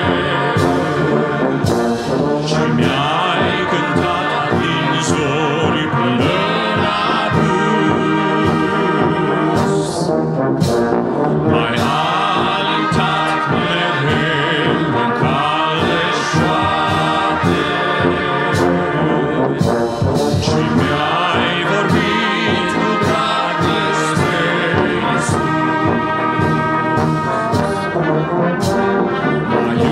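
Brass band with flutes and clarinets playing a hymn tune: trumpets, trombones, tubas and a sousaphone in full sustained chords. The upper parts drop out briefly about ten seconds in while the low brass carries on.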